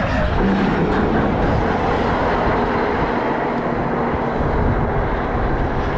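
Heavy diesel engine running steadily at a constant speed.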